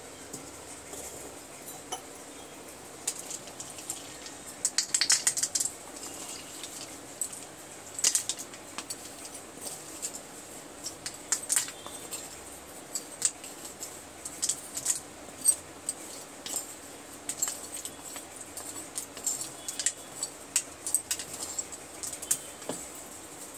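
Metal spoon stirring and scraping through broken slate pencils in water in a coconut shell: irregular clinks and clicks of spoon on slate and slate on slate, with a quick flurry about five seconds in.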